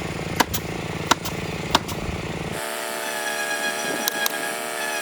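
Cedar fence pickets being nailed on: sharp, single nail strikes about every two-thirds of a second. About two and a half seconds in, the sound changes to a steady machine hum, with two more strikes close together near the four-second mark.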